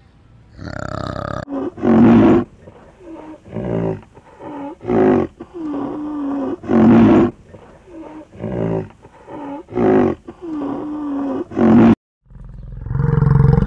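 A large animal calling over and over: five loud calls, each a second or less, with quieter, wavering calls between them. Near the end the sound cuts off abruptly, and a shorter, lower call follows.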